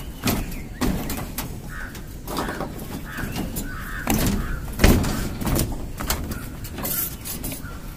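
Knocks and clicks of PVC electrical conduit and fittings being handled and fitted, the loudest knock just under five seconds in. A bird calls several times in the first half.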